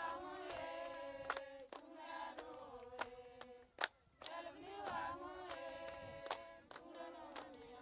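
Women's voices singing together in long held notes, over a sharp beat about twice a second.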